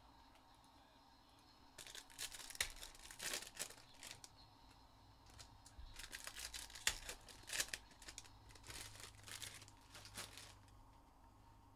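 Plastic wrappers of trading-card packs being torn open and crinkled by hand, in two spells of crackling: one about two seconds in, and a longer one from about the middle to near the end.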